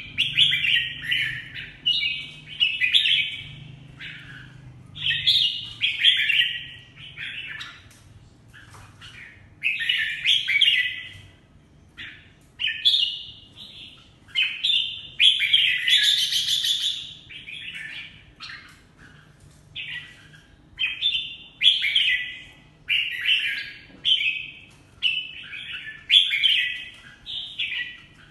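Red-whiskered bulbul (jambul) singing: bright, warbling phrases of about a second each, repeated with short pauses, with one longer, louder phrase around the middle.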